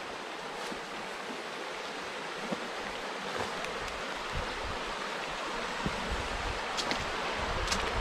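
Steady rushing of a small rocky stream, water running fast over the stones of a shallow riffle. Soft low bumps come now and then in the second half.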